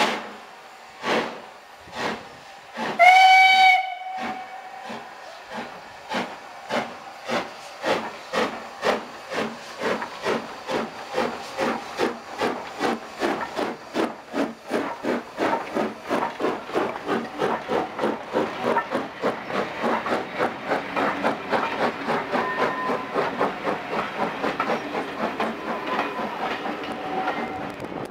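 S&DJR 7F 2-8-0 steam locomotive No. 88 starting away with its train: a few slow exhaust chuffs, one short whistle blast about three seconds in, then exhaust beats that quicken steadily as it accelerates past.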